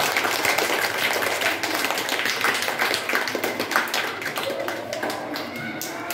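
A class of young schoolchildren clapping together in quick, uneven applause, which thins out and fades over the last second or so.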